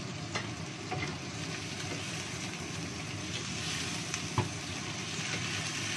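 Sliced shallots, garlic, chilies and green tomato sizzling in hot oil in a wok as a wooden spatula stirs them, with a few short knocks of the spatula against the pan. The sharpest knock comes a little over four seconds in.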